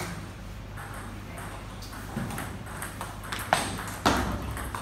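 Table tennis rally: the plastic ball clicking sharply off the paddles and bouncing on the table, the hits beginning about two seconds in and coming quickly near the end.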